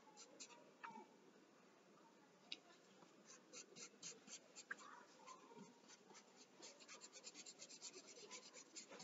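Pencil scratching on paper in short, quick shading strokes, faint. The strokes stop for about two seconds after the first second, then resume and speed up to about four or five a second toward the end.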